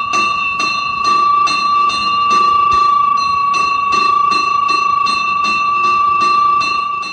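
Temple bell rung steadily, its clapper striking about twice a second over one clear, sustained ringing tone; the ringing stops near the end.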